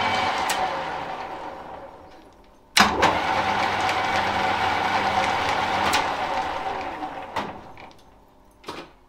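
Smart & Brown lathe's electric motor and drive, switched off and spinning down. About three seconds in, the start button clicks and it runs up again for about three seconds, then it is switched off and spins down again. The start and stop switch now works after a faulty start button was repaired.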